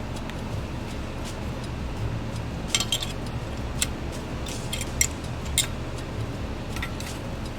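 A few short clicks and light clinks of small hard parts being handled, the loudest cluster about three seconds in, over a steady low hum.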